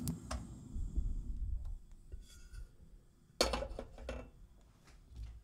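Kitchen handling noises: dishes and utensils knocking and clinking, with one louder clatter about three and a half seconds in.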